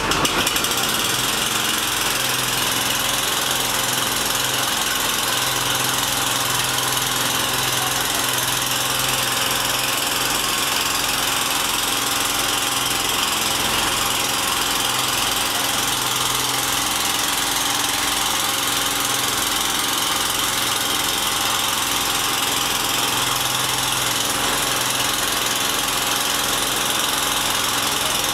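Fire truck's engine running steadily, driving its water pump to feed the hose, with an even hum and a constant hiss.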